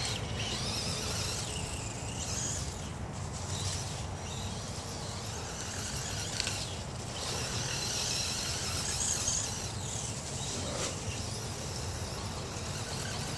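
RC truck's Castle brushless motor whining at high pitch as the truck speeds around on dirt and grass, swelling and fading with the throttle, with its tyres scrabbling over the ground.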